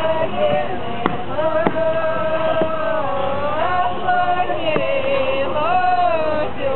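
Singing in long, held notes that slide slowly up and down, in a drone-like chant. A few sharp clicks or knocks cut through it, about a second in, near two seconds, and near five seconds.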